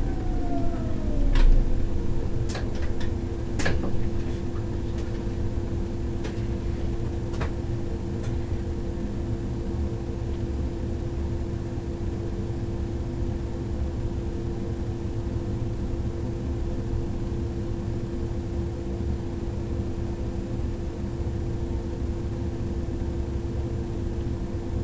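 Electric S-Bahn train coming to a stop: the motor whine slides down in pitch and dies out about a second in, with a few sharp clicks and knocks over the next several seconds. Then comes the steady hum of the standing train's equipment, heard from the driver's cab.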